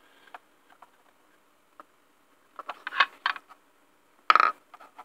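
Small clicks and scrapes of a USB adapter plug being worked into a Raspberry Pi Zero W's tight micro-USB port by hand. A louder cluster of clicks comes about three seconds in, and a brief louder noise just after four seconds.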